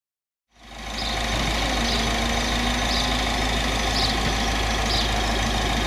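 MINI Roadster Cooper S with the ignition on before the engine is started: a steady hum with a short, high chime repeating about once a second.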